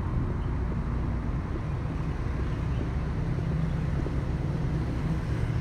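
Truck diesel engine idling: a steady low rumble with no change in pace.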